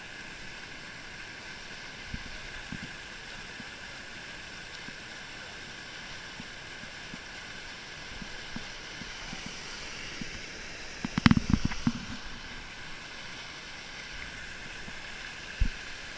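Steady rush of falling and flowing water from a waterfall. About eleven seconds in, a short cluster of loud knocks stands out over it, and a single low thump comes near the end.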